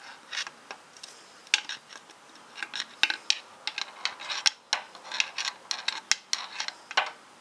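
Steel screwdriver tip clicking and scraping against metal down inside the distributor bore of a Chevy 4.3L V6 while feeling for the oil pump drive rod: an irregular run of light metallic clicks and short scrapes.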